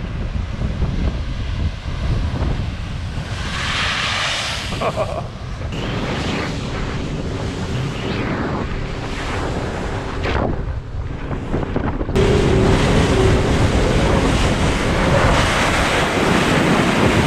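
Ocean surf breaking on a rocky lava shoreline, then, after a cut, wind buffeting the microphone and water rushing past the hull of a moving boat, louder from about twelve seconds in.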